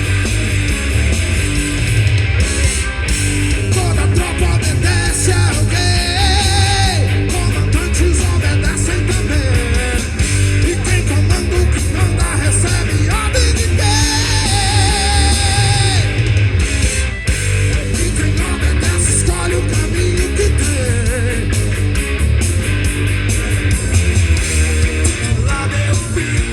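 Rock music: electric guitar, bass and drums playing with a steady heavy beat, and two held, wavering notes about a quarter and halfway through.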